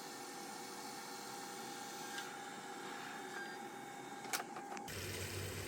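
Dreame X40 Ultra robot vacuum running faintly with a steady mechanical whine as it drives back to its dock to charge. A sharp click comes about four seconds in.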